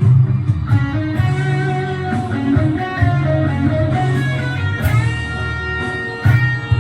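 Band music: a guitar solo playing a moving melody over bass, with a few drum hits.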